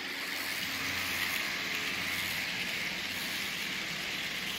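Model trains rolling along the track: a steady whirring rush of wheels on rails with a faint motor hum.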